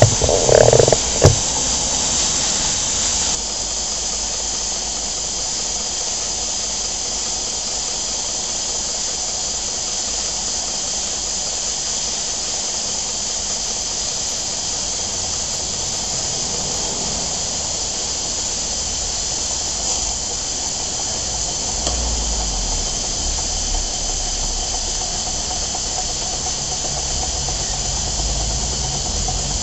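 Steady hiss from a gas-fired live-steam plant (Stuart 504 boiler feeding a model steam engine). A few knocks and a short clatter come in the first second and a half, and the hiss drops a little about three seconds in.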